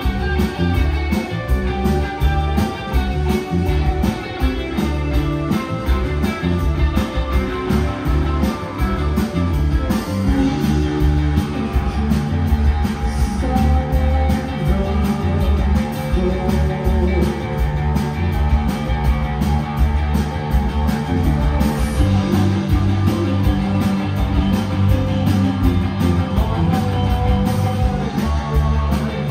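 Rock band playing live, with drum kit, electric bass, electric guitar and keyboard. The drums keep a steady, driving beat under the held guitar and keyboard notes.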